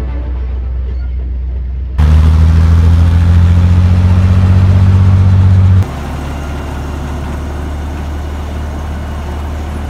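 A WWII German armoured vehicle's engine running with a deep, steady drone. About two seconds in it jumps abruptly much louder, then near six seconds it drops back just as suddenly to a lower steady run.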